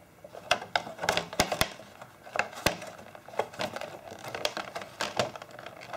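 Stiff clear plastic blister packaging clicking and crackling as a microphone is worked out of its moulded tray: an irregular scatter of sharp clicks.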